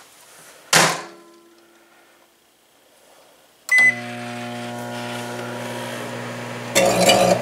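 A microwave oven door shuts with a knock about a second in. Near the middle the keypad beeps and the 700-watt microwave starts up with a steady hum. Near the end a loud crackling buzz joins the hum as the metal-lidded meal tray inside starts arcing.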